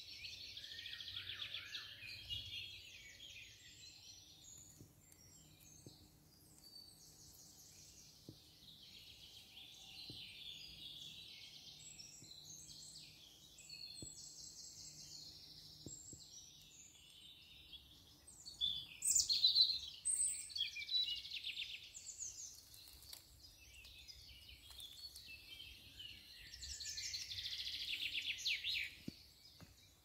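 Woodland songbirds singing in a string of high, chirping phrases, one after another. The loudest bursts come about two-thirds of the way through and again near the end.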